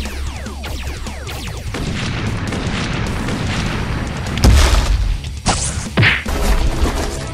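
Dubbed battle sound effects over background music: a blaster shot trailing a stream of falling zaps, then a loud boom about four and a half seconds in, followed by a few more hits.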